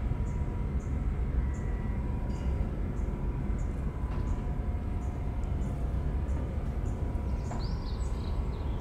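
Steady low outdoor rumble with faint high chirps repeating about once or twice a second.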